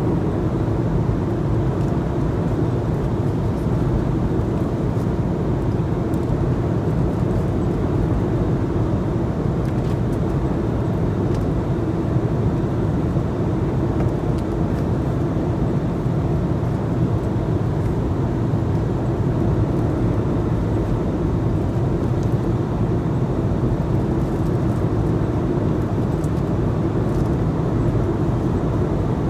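Airliner cabin noise heard from inside the passenger cabin: the steady, even drone of the engines and airflow, deep and unchanging.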